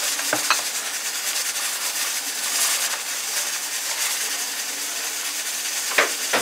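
Spiced broth bubbling in a pot at the boil, a steady hiss, while a plastic slotted spatula stirs and scrapes through it. There are light knocks of the spatula against the pot about half a second in and again near the end.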